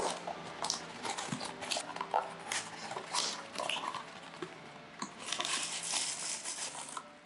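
Paperboard box being torn open and handled by hand: a sharp tear right at the start, then a run of short rustles and scrapes as the flaps and a small inner paper box are opened. Near the end, plastic bubble wrap crinkles as the wrapped item is pulled out.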